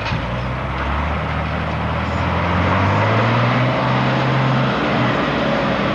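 Diesel engine of a three-axle livestock lorry pulling across the yard, getting louder as it comes past, its note rising a little and dropping back about three-quarters of the way through.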